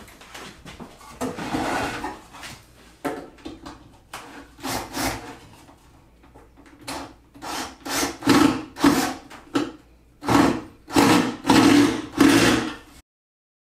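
A drill driving pocket screws into pallet wood in a series of short bursts. The bursts are loudest and most regular in the second half, and the sound stops abruptly near the end.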